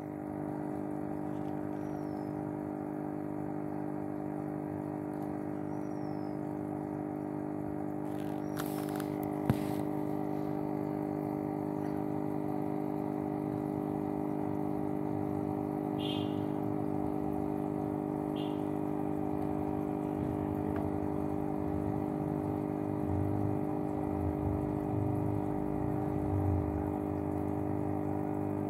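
Aquarium pump humming steadily over faint water noise, with a single sharp click about nine and a half seconds in and a few low bumps near the end.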